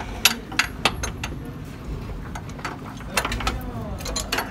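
Short sharp metallic clicks and knocks from a pry bar levering a Toyota Corolla's front suspension parts: several in the first second or so and a few more near the end.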